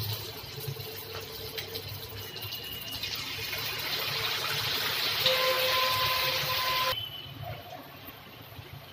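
Hot oil sizzling and bubbling as battered chicken lollipops deep-fry in a kadai. The sizzle swells from about three seconds in, is loudest for several seconds, then drops off suddenly.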